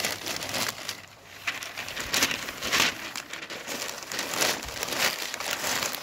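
Sheets of newspaper rustling and crinkling in irregular bursts as they are folded and pressed into a plastic crate to line it.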